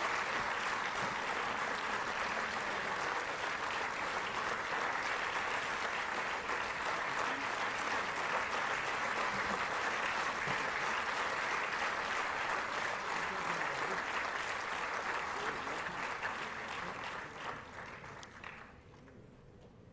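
Large audience applauding, a dense steady clapping that fades and then cuts off suddenly near the end.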